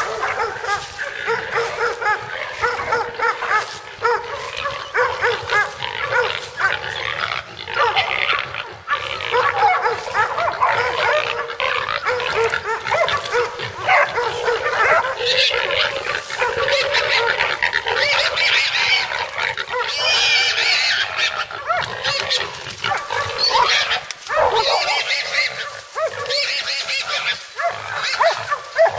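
Hog-hunting dogs barking and baying without pause at a bayed hog, with the hog squealing among them; the calls overlap thickly and grow more intense in the second half.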